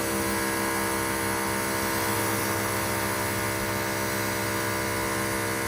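Pressure washer running at a steady pitch, with the hiss of the water spray.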